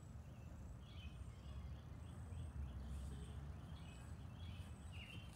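Outdoor ambience: faint, short bird chirps repeating over a low, steady rumble.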